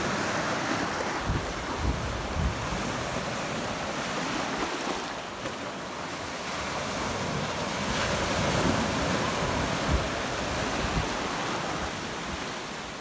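Small ocean waves breaking and washing up the beach in a steady surf, with gusts of wind buffeting the microphone in short low rumbles now and then.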